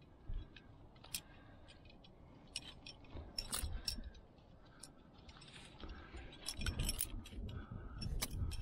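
Metal climbing gear clinking: carabiners and quickdraws on a harness jangle and click irregularly as the rope is handled and clipped. Low rubbing and knocking come in toward the end.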